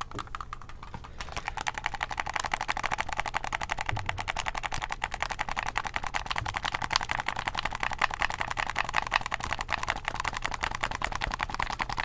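Xbox One controller buttons clicked rapidly close to the microphone: a fast, dense run of plastic clicks, many a second, that picks up and grows fuller about a second in.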